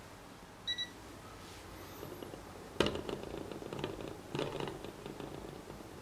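Two short electronic beeps from a digital multimeter, then a sharp click and a run of light clicking and knocking on the plastic generator mount of a homemade Stirling engine as it is held and adjusted by hand.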